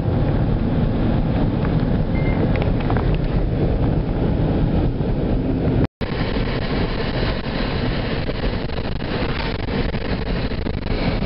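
Steady road and wind noise of a moving car heard from inside the cabin, with a momentary dropout to silence about halfway through before it resumes.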